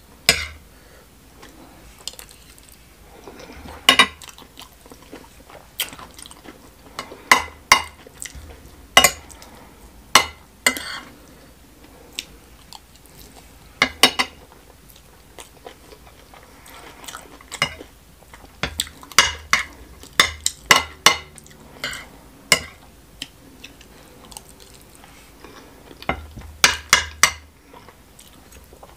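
Eating sounds: a metal fork clinking and scraping on a plate, with chewing of smoked catfish stew and rice. The clinks come irregularly, some in quick clusters.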